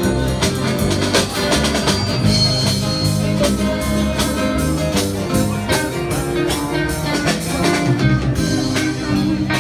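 Live band playing guitar-led music with drums keeping a steady beat.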